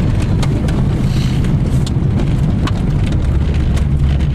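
Chevrolet car engine running loudly and steadily just after a cold start in freezing weather, with scattered sharp clicks over the running.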